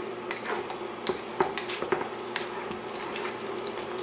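A spoon scraping and clicking against a steel wok as cauliflower in thick sauce is stirred, a sharp click every half second or so, over the steady buzzing hum of an induction cooker.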